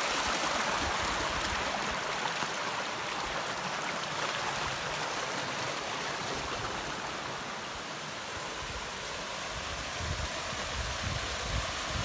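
Spring-fed forest stream rushing and splashing over rocks in small cascades, a steady rush of water that eases slightly about two-thirds of the way through and swells again near the end.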